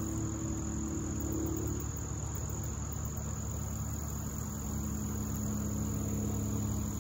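Steady, high-pitched chorus of insects such as crickets, unbroken throughout, over a low steady hum.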